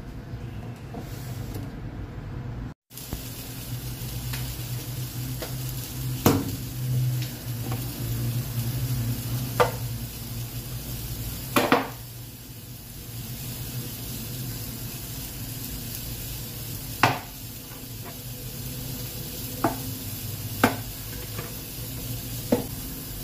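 Steady kitchen hiss and low hum at the stove, broken by sharp clicks and knocks as a plastic cooking-oil bottle and food containers are handled and oil is poured into a frying pan, about seven clicks in all.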